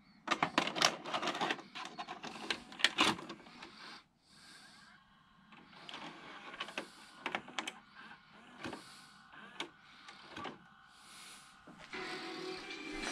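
VHS cassette pushed into a Philips VCR/DVD combo deck: loud clicks and clunks as it goes in, then the loading mechanism whirring and clicking as the motor draws in and threads the tape. About a second before the end, the tape's playback audio comes in through the TV.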